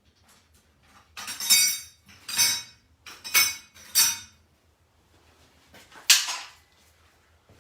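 Metal pieces being handled and knocked together, five ringing clanks over about five seconds, the last about six seconds in.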